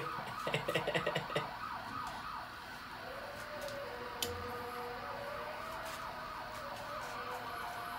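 Distant emergency-vehicle siren: a fast yelping warble that changes about three seconds in to a slow, steady wail.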